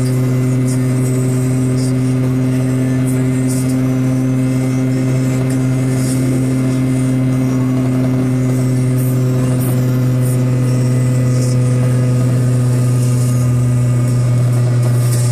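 Piaggio Ape 50's small two-stroke single-cylinder engine running at a steady speed under way, a constant drone with scattered light ticks over it.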